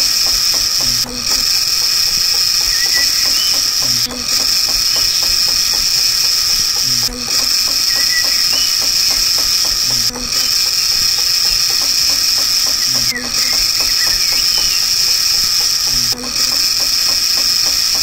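Steady high-pitched whine of a small electric motor spinning the cutting disc of a handmade toy tree-cutting machine, broken by a short dip about every three seconds.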